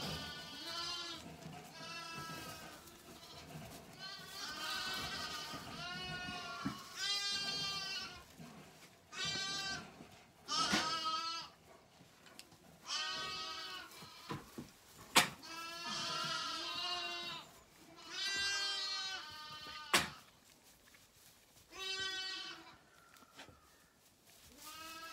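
Zwartbles lambs bleating over and over, a dozen or so calls each about a second long, at lamb-feeding time. Two sharp knocks stand out, one about fifteen seconds in and one about twenty, louder than the calls.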